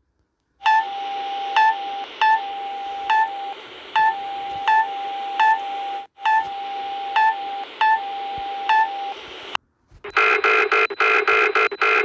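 Custom-made electronic emergency alert alarm: loud short beeps repeat about every second over a steady, quieter held tone and a hiss. Near the end it cuts off, and a different alert of rapidly pulsing tones begins.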